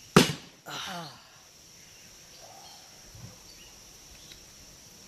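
A sharp, loud sound at the very start and a short voice-like sound just after it, then steady insect chirring, a constant high thin drone, over quiet outdoor background.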